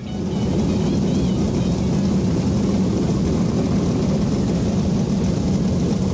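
Super saloon dirt-track race car's V8 engine running with a steady low rumble as the car drives slowly through the pits.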